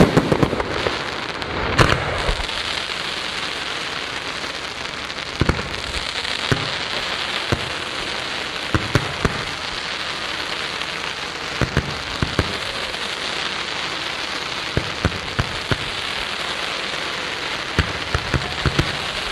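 Fireworks display: a continuous crackling hiss with sharp bangs scattered through it, several coming in quick runs of three or four.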